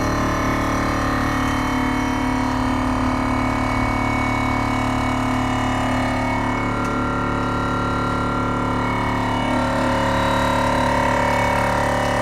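On-board air compressor running steadily, filling the train horn's air tank now that its wiring is repaired.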